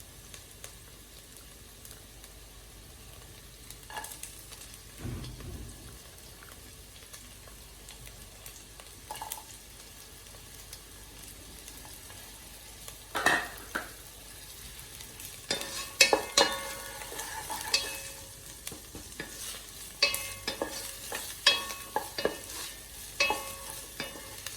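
Onions, garlic and ginger sizzling in oil in a pan, a steady frying hiss. A few single knocks come in the first half, then in the second half a utensil knocks and scrapes against the pan over and over as the vegetables are stirred.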